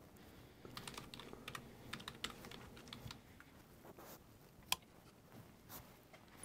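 Faint typing on a computer keyboard, irregular key clicks, followed later by a single sharper click.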